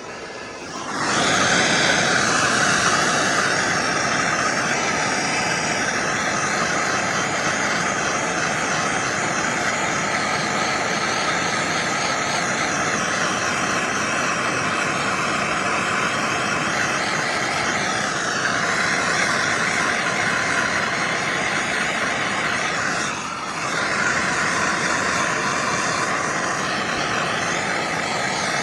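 Heat gun blowing steadily while shrinking heat-shrink tubing over a spliced headlight harness wire, with a brief dip late on before it switches off.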